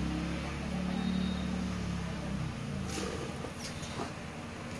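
A steady low motor hum, which stops about two and a half seconds in. A few light clicks and rustles of the phone's packaging being handled follow.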